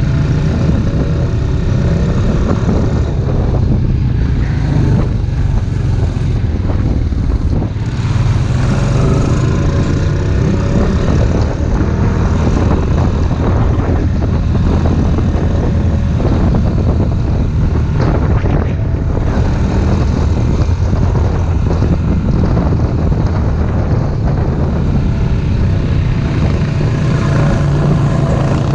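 ATV engine running steadily while riding along the trail, with wind noise over it.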